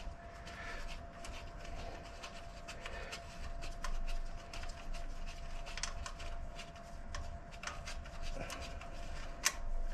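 Irregular small clicks, taps and rubbing of hand tools and a socket being worked on engine bolts, with a sharper click near the end. A faint steady hum runs underneath.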